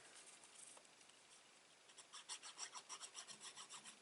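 Faint, quick scratching strokes on paper, about seven a second, starting about two seconds in: a fingernail working at double-sided tape to lift its backing.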